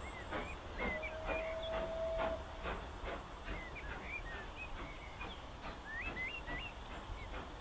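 Steam locomotive working a train some way off, its exhaust beats coming steadily about twice a second, with small birds singing over it.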